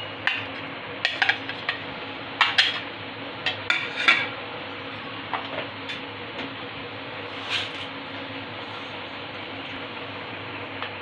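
A plastic spoon scrapes and taps against a plate as small fried gram-flour phulkiyan (boondi) are pushed off it into a steel bowl of yogurt. Clusters of quick clicks and clatters come in the first four seconds, then only occasional taps, and a single knock near the end as a plastic cutting board is tipped over the bowl.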